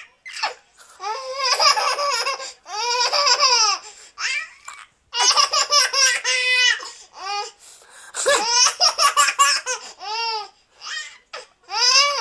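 Baby girl laughing hard in repeated bouts of high-pitched, squealing laughs, each bout a string of quick rising-and-falling notes, with short breaths and pauses between them.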